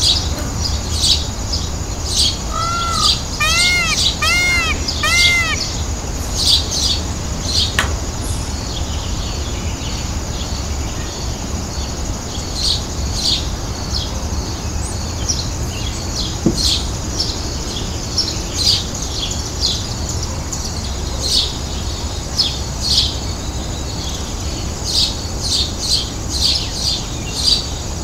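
Birds chirping: many short, high chirps repeated through the whole stretch, with a run of four short arching calls about three to five seconds in, over a steady low background rumble.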